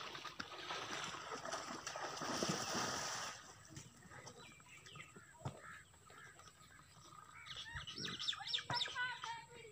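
Birds calling in a rice field: a cluster of short, quick chirps near the end. In the first three seconds there is a rustling noise.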